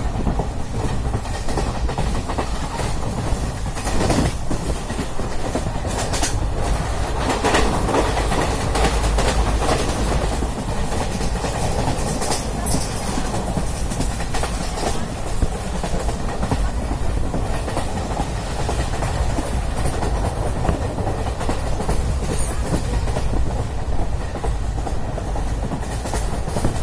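Wheels of a moving express passenger train running on the rails: a steady low rumbling clatter with a few sharp clacks from the track.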